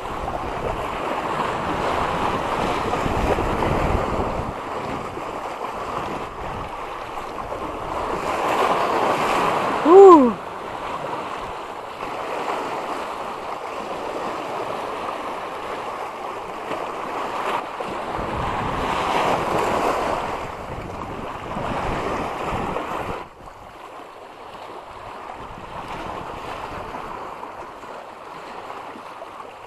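Sea waves washing and surging with wind buffeting the microphone, swelling and easing every several seconds and dropping lower near the end. About ten seconds in comes a single brief, loud falling whistle.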